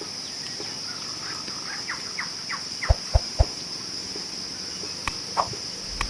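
Forest ambience: a steady high-pitched insect drone, with a bird calling a quick run of short falling notes about two seconds in. Three low thumps come close together around the middle, and a couple of sharp clicks near the end.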